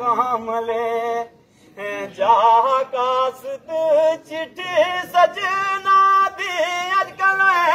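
A man singing a kalaam (devotional song) unaccompanied, in long held notes with wavering, ornamented turns, with a brief break about a second and a half in.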